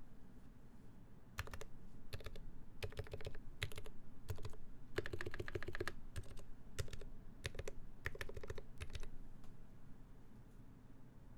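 Typing on a TMO50v2 mechanical keyboard with ZealPC Roselios switches lubed with Krytox 205g0, on a full brass plate with GMK ASCII keycaps: bursts of quick keystrokes in short runs, stopping about nine seconds in.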